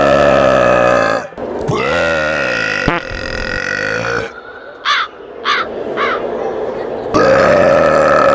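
Long, drawn-out, belch-like croaking sounds, loud and pitched. Three short, high squeaks dropping in pitch come in quick succession midway, before the croaking starts again near the end.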